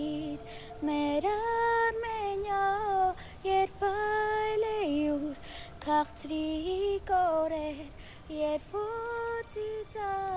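A high voice singing a slow melody without words being spoken over it, in long held notes joined by short pitch slides, with brief breaks between phrases.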